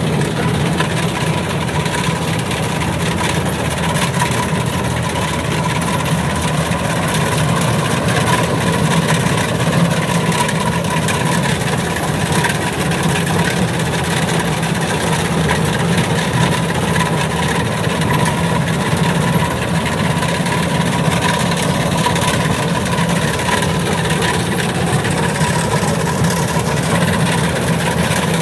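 Kubota DC93 combine harvester running steadily as it cuts rice: a continuous diesel engine drone with its header and threshing machinery working, and a thin steady whine above it.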